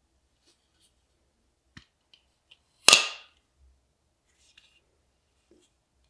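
Maxace Titanis folding knife flipped open: a single sharp metallic snap, with a brief ring, as the blade swings out and locks, about halfway through. A few faint handling clicks come before and after it.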